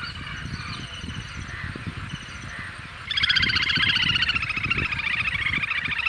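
Little grebe giving its rapid whinnying trill, which starts about halfway through and runs on, loud and fast-pulsed. Before it come faint, short high calls, over low splashing of water.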